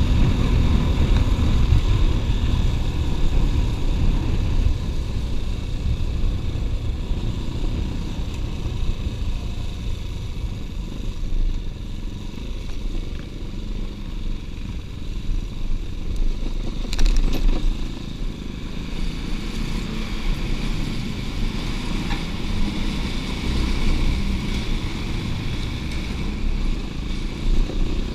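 Off-road motorcycle engine running under way over a rough dirt track, with a dense low rumble throughout. A sharp clatter comes about two-thirds of the way through.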